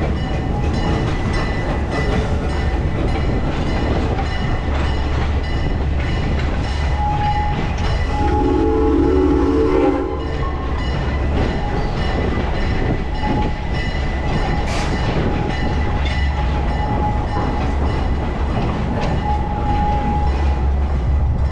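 Park excursion train running on its tracks close below, a steady rumble with some clatter, and a chord-like horn blast of about two seconds some eight seconds in.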